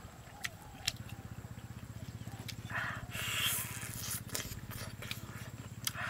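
Close mouth sounds of eating roasted chicken: sharp clicks and smacks, with a longer wet sucking noise about three seconds in as meat is drawn off a bone. A steady low hum runs underneath.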